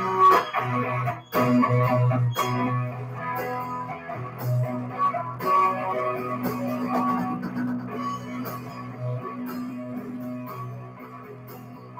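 Live band music led by electric guitar over a bass line, with scattered sharp note attacks, getting gradually quieter over the last several seconds.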